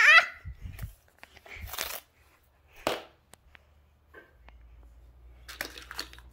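Hands handling small fidget toys: scattered clicks, taps and short rustles, with a brief vocal sound at the very start.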